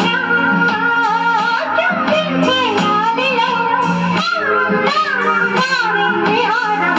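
A song playing: a singing voice over plucked guitar and a steady bass line, played back through the audio system under test.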